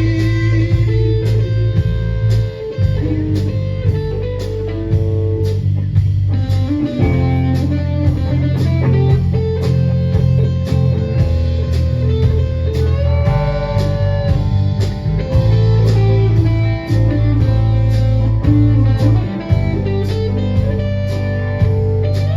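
Instrumental break of a blues-rock song: electric guitar playing over bass guitar and drums with a steady beat.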